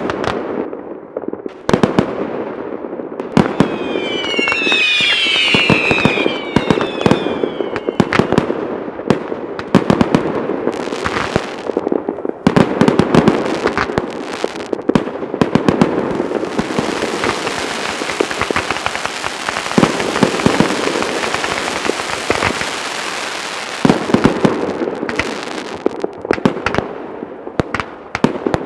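Fireworks display: repeated sharp bangs of aerial shells bursting, with whistling fireworks gliding down in pitch a few seconds in and a long stretch of dense crackling in the middle.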